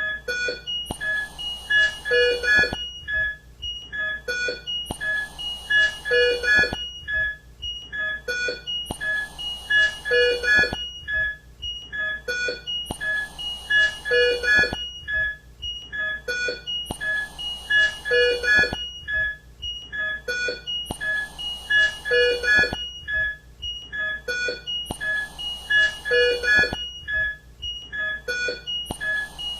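ICU equipment: a mechanical ventilator cycling about every four seconds, with a hiss of air lasting roughly two seconds on each breath. Short electronic beeps from patient monitors and alarms repeat throughout at several different pitches.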